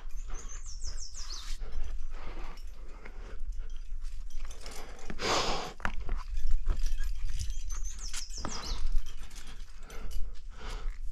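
A rock climber panting and breathing hard from exertion on a steep sandstone lead, with scuffs and knocks of hands and shoes on the rock. A loud rushing burst comes about five seconds in, and a quick run of high notes stepping downward is heard twice.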